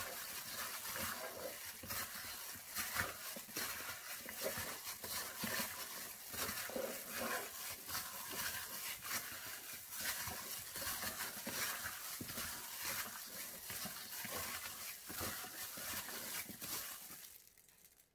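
A hand in a thin plastic glove mixing raw chicken wings with dry spices in a bowl: a run of irregular, uneven handling sounds of the wet meat being turned and pressed, with the glove rustling. The mixing stops about a second before the end.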